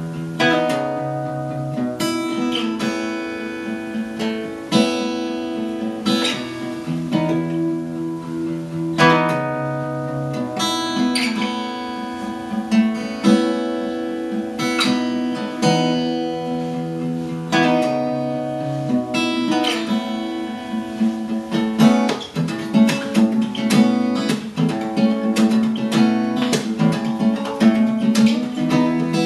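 Acoustic guitar strumming a chord pattern in a steady rhythm, the chords changing every couple of seconds.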